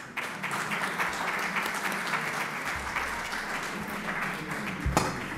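An audience applauding steadily, with a dull thump near the end.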